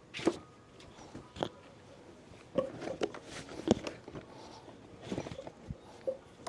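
A string of sharp, irregular knocks and clicks, several seconds apart in places and bunched in others, over a faint steady hum.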